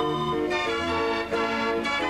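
Dutch street organ (draaiorgel) playing a tune: held pipe notes over a repeating bass-and-chord accompaniment.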